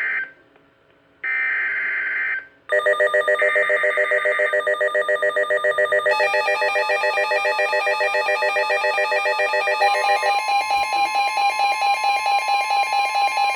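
Emergency Alert System SAME header data bursts from a NOAA Weather Radio, harsh buzzy digital chirps about a second long, announcing a severe thunderstorm warning. About two and a half seconds in, a weather radio's loud, rapidly pulsing alert alarm starts over the last burst, and a steady warning tone joins under it about ten seconds in.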